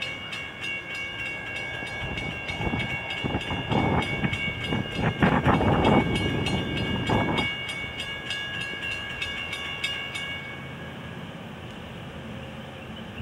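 Railroad grade-crossing warning bell ringing in rapid, even strokes, stopping about ten seconds in. Several louder rushing swells come and go between about two and seven seconds in.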